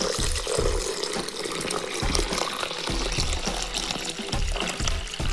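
A stream of water poured from a jug into a Thermomix bowl of ground, soaked tiger nuts, splashing and frothing as it pools. Background music with a steady beat plays underneath.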